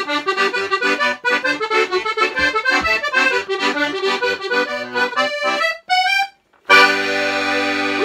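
Piano accordion playing a quick run of notes for about six seconds, then after a short gap a loud, full chord held steady as the closing note.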